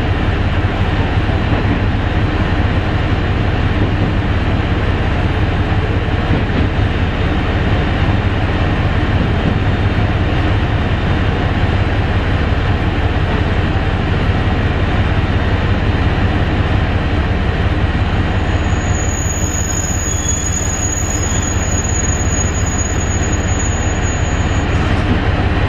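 Ibara Railway diesel railcar heard from inside the car: a steady rumble of engine and wheels on rail. A thin, high brake squeal comes in near the end as the train pulls into the station.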